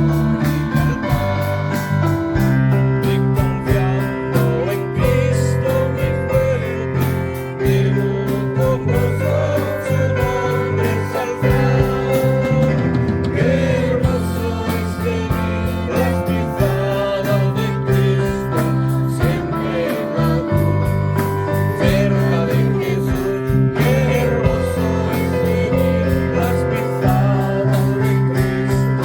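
Music: a song with a singing voice over guitar and bass, in a gospel style.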